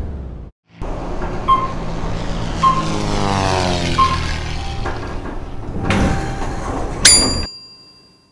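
Logo sting sound effect: a long rushing whoosh with short blips and a pitch that sweeps downward in the middle, then a sharp bright hit about seven seconds in that rings and fades out.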